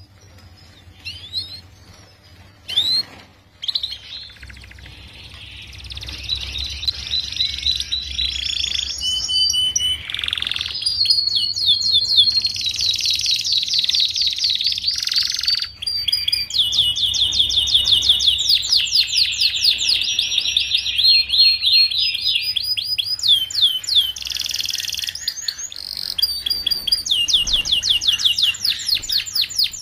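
Domestic canary singing: a few scattered chirps, then from about four seconds in a continuous high song of fast trills and rolls, each phrase a run of rapidly repeated notes that shifts pitch from phrase to phrase.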